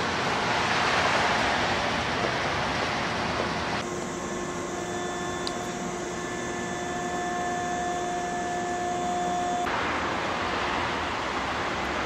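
Steady rushing background noise. From about four seconds in until near ten seconds it switches abruptly to a quieter stretch with several steady humming tones, then the rushing noise returns.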